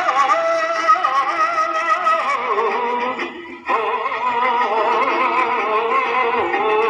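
A song playing: a singer's wavering, drawn-out melody over instrumental backing, dropping away briefly a little past halfway and then going on.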